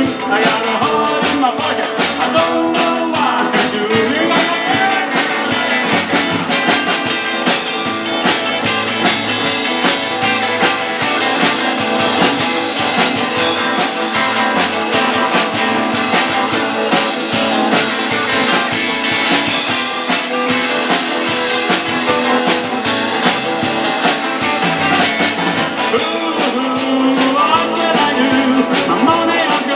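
Rock music with a steady beat, guitar and singing.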